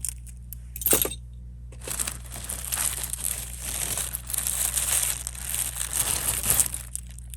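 Crinkling of plastic wrapping while jewelry is handled, with small metallic clinks and a sharp click about a second in.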